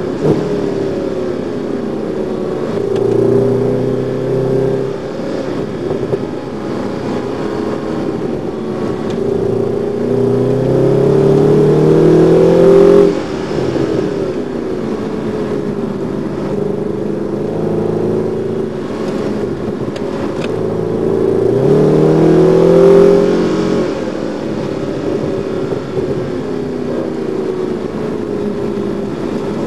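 Mercedes-AMG car's engine heard from inside the cabin at track speed, rising in pitch as it accelerates and falling back, three times over; the loudest pull cuts off sharply about thirteen seconds in.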